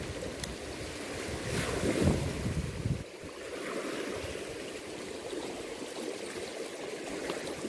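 Choppy, turbulent lake water splashing and rushing close by, with wind buffeting the microphone. The low wind rumble is heavier for the first three seconds, then eases to a steadier wash of water.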